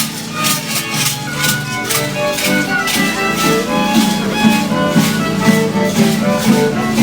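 Traditional dance music for the rain dance: a violin melody over rattles shaken in a steady beat.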